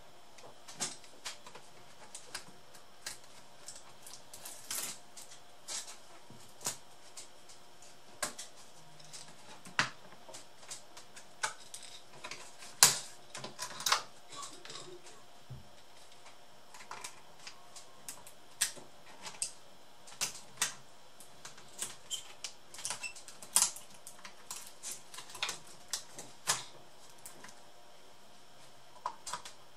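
Irregular light clicks and taps of small hand tools, screws and plastic laptop parts being handled on a wooden workbench, with a few sharper clicks around the middle.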